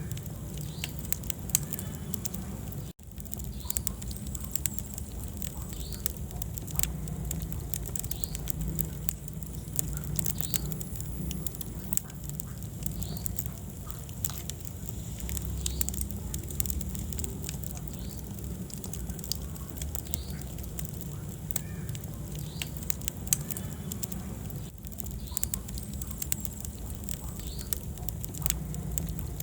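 Wood fire burning in a fireplace: irregular crackles and pops over a low, steady rumble of flame. The sound drops out for an instant about three seconds in.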